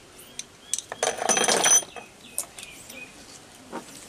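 Glass medicine vials and their packaging clinking and rattling as they are handled, with scattered light clicks. The loudest clatter, with a high glassy ring, comes about a second in and lasts under a second.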